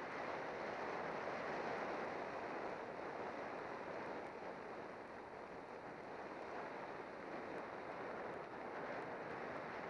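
Steady wind rush over the microphone of a camera on a road bicycle descending at speed, a little louder about one to three seconds in.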